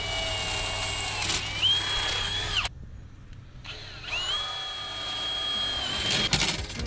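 Cordless drill boring bolt holes through aluminium treadplate. It runs twice with a pause of about a second between: each run is a whine that rises in pitch as it gets going, holds steady and then cuts off.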